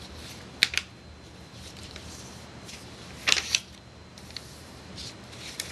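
A sheet of printer paper being folded and creased by hand: short crisp crackles, two close together a little under a second in and a louder cluster just past three seconds, over a faint steady hum.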